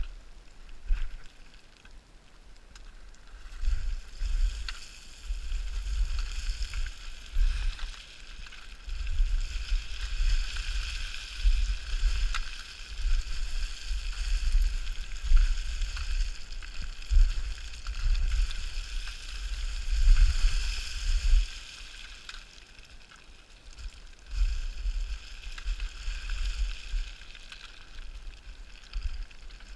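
Loose scree crunching and sliding underfoot in long rushing spells as a hiker descends a scree gully, with wind buffeting the microphone.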